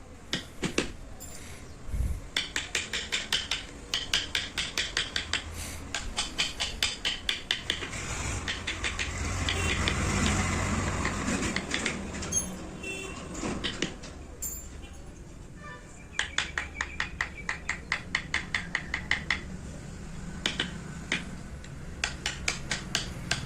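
Carving chisel being struck into wood with quick, even blows, about three a second, each tap with a slight metallic ring. The tapping stops for a few seconds in the middle, where a rougher steady noise takes over, then resumes.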